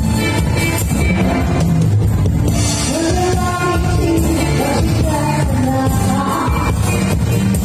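Loud disco dance music from a live band played over a sound system, with a heavy bass beat; a singer's voice comes in about three seconds in.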